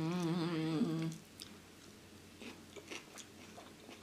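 A woman hums a held 'hmm' for about a second while trying to recall something. Soft chewing and mouth clicks of eating follow.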